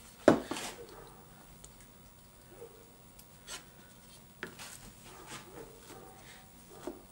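Wooden box parts of eastern red cedar and maple being handled on a plywood workbench: one sharp wooden knock about a third of a second in, then scattered light taps and rubbing as the pieces are moved and set down.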